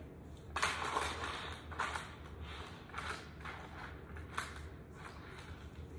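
Small plastic clicks, creaks and rustles of N scale model train cars being handled and set onto the track, in irregular short bursts.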